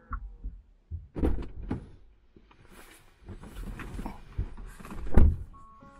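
Someone settling into a car's driver seat: rustling and handling noise as the seatbelt is pulled across, with several dull thumps and one heavy thud about five seconds in.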